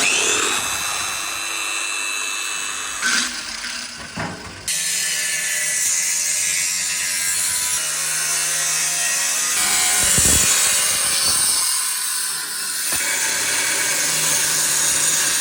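Power-tool noise from metalwork on car seat frames, in a string of short clips with abrupt cuts. Near the start a motor's whine rises and levels off as it spins up.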